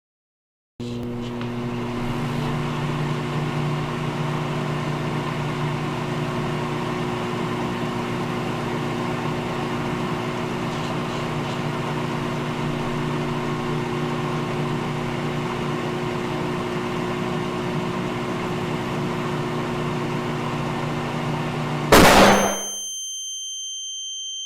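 Microwave oven running: a steady electrical hum with fan noise. About 21 seconds in it stops with a loud clunk, followed by a long, steady high beep marking the end of the heating cycle.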